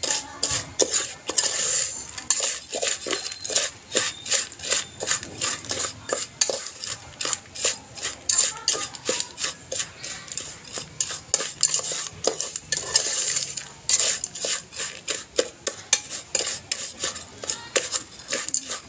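Slotted metal spoon stirring raw popcorn kernels around a stainless steel pot, scraping and clinking against the metal in a quick, uneven series of strokes.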